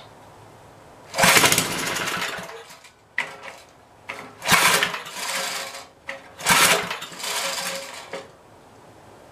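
5 hp Briggs & Stratton engine pull-started by its recoil rope, three long pulls and one short one. Each pull cranks it over in a short loud burst, and it doesn't keep running; the carburettor is still not clean enough to run it.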